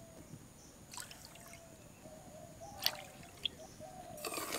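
Water poured from a cup into a pan of sugar for syrup: a faint trickle with a few sharp clicks, the loudest about three seconds in, and louder, noisier pouring from about four seconds in.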